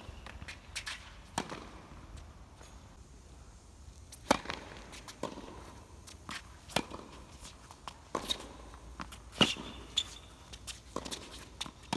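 Tennis rally on a hard court: sharp pops of racket strings striking the ball and the ball bouncing, coming every second or two, some near and loud, others fainter from the far end.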